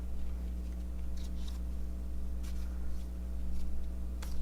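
Faint rustles and light clicks of baseball cards being handled and flipped through, over a steady low electrical hum.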